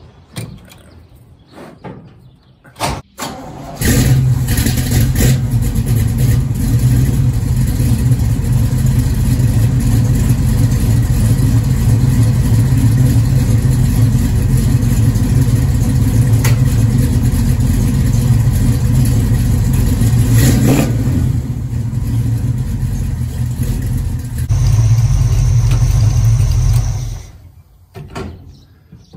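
Stroked Pontiac 455 V8 (494 cubic inch) in a 1969 Firebird fires up about four seconds in and runs loud and steady for over twenty seconds, then falls away near the end.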